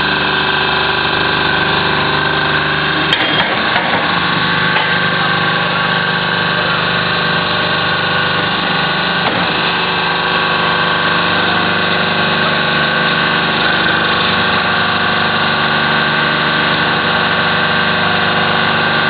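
Hydraulic waste paper baler running: its motor and hydraulic pump give a steady hum, with a sharp click about three seconds in.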